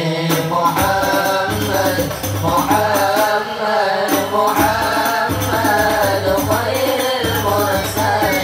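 A group of santri boys singing an Islamic sholawat (qasidah) into microphones, with hand-played frame drums beating a steady rhythm under the melody.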